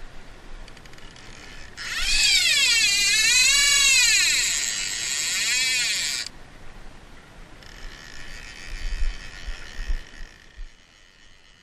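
Click-and-pawl fly reel being cranked to wind in line: a loud ratcheting buzz whose pitch rises and falls with each turn of the handle, lasting about four seconds from two seconds in, then fainter and broken up.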